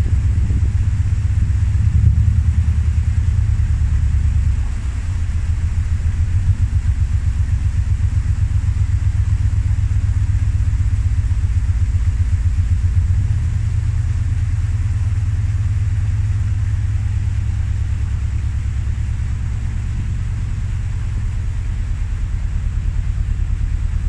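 A narrowboat's diesel engine running steadily under way, a low rumble with a fast, even beat, driving the boat slowly forward; it drops a little in level about five seconds in.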